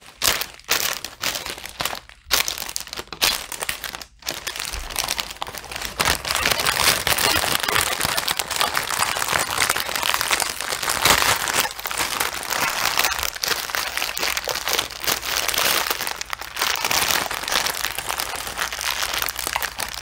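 Clear plastic bags crinkling as a bundle of small zip bags of diamond-painting drills is handled in its outer wrapping. There are scattered rustles for the first few seconds, then steady crinkling from about four seconds in.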